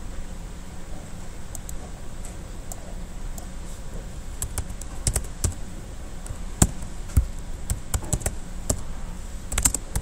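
Typing on a computer keyboard: irregular key clicks, sparse at first and more frequent in the second half.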